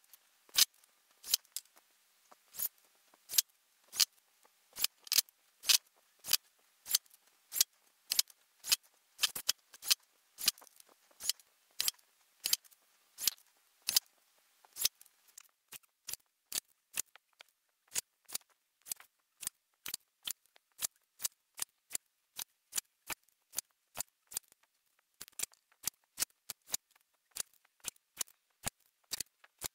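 Hilti Nuron impact driver driving 2-inch screws into a wooden post one after another, each drive heard as a short sharp click, about one and a half clicks a second, in sped-up footage.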